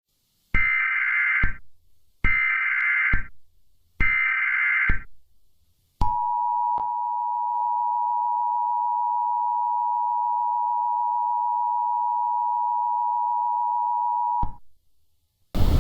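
Emergency Alert System header: three short bursts of warbling digital data tones, each about a second long, followed by the two-tone EAS attention signal, held steady for about eight seconds and cutting off sharply. This sequence marks the start of a new emergency alert broadcast.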